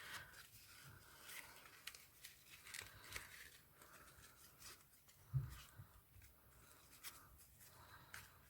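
Faint rustling and small clicks as hands fit a diamante centre wrap onto a ribbon hair bow, with one soft thump about five seconds in.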